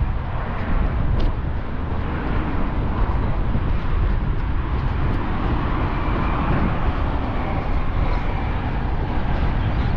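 Steady road traffic noise with a heavy low rumble, swelling a little about six seconds in as a vehicle passes.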